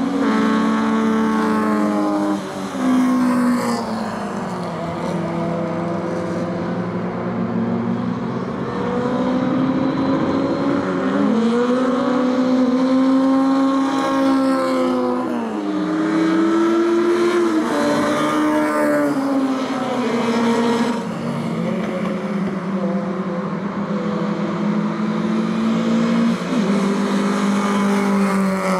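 Small four-cylinder 1300 cc touring race cars (Lada and Samara) lapping one after another, often two or more heard at once. Their engines rev up and drop sharply in pitch with each gear change, several times over.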